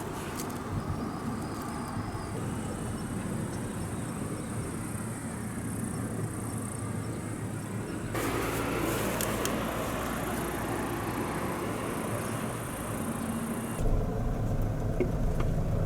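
Steady low running noise of a vehicle, in three stretches that change abruptly about eight and fourteen seconds in.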